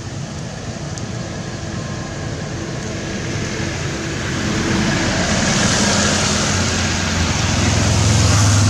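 A motor vehicle approaching on a wet road. Its tyre hiss and engine hum grow steadily louder from about halfway through.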